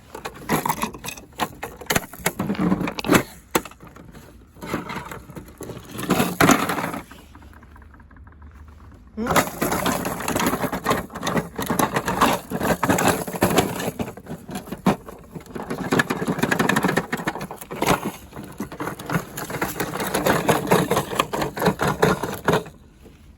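Washing machine running hard with its drum and cabinet banging and rattling, a dense clatter of sharp knocks. The clatter stops for about two seconds partway through and then comes back just as loud.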